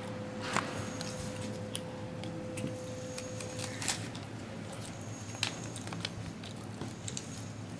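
Scattered light clicks and crinkles as a plastic packaging bag and a wooden fingerboard deck are handled on a table, over a steady low hum.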